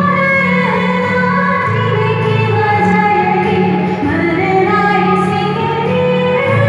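A woman's singing voice holding long, gliding notes over a steady low drone in the accompaniment.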